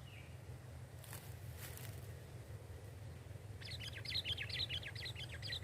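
Sooty-headed bulbul (kutilang) calling: a quick run of short, chattering notes that starts a little past halfway and carries on, over a steady low rumble.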